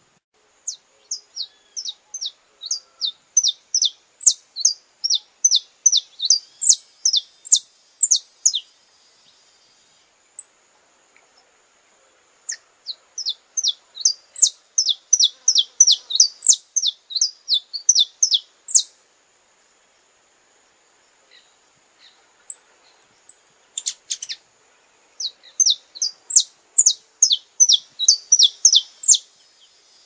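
Saffron finch (canário-da-terra) singing: three long bouts of quick, sharp, falling high notes repeated several times a second, separated by short pauses.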